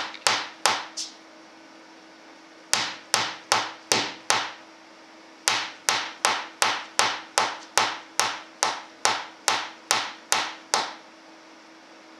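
Sharp knocking on a hard, wood-like surface in three runs of separate knocks, about two a second, the last run the longest, with a faint steady hum underneath.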